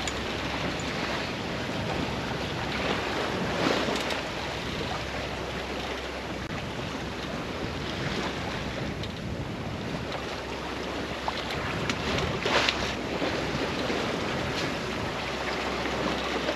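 Steady rush of water along the hull of a sailboat under sail, mixed with wind buffeting the microphone. The water surges louder briefly about four seconds in and again near thirteen seconds.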